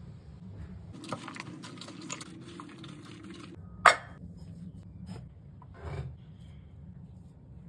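Kitchen handling sounds: rustling and scraping, then one sharp metallic knock as a stainless steel bowl is set down on a wooden board. Near the end comes a soft, wet scrape as a silicone spatula pushes grated vegetable mixture into a cloth.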